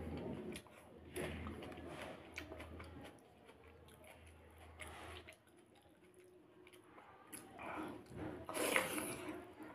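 Fingers squeezing and mixing dahi pakhala (cooked rice soaked in water and curd) in a steel bowl: wet squishing in several uneven bursts, loudest near the end.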